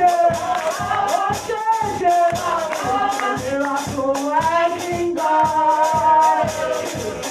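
Worship song during a church service: voices singing over music with a steady quick beat.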